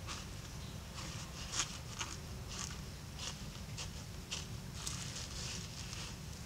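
Large green leaf rustling and crinkling as hands handle and fold it around food, a string of short crisp rustles about every half second over a steady low rumble.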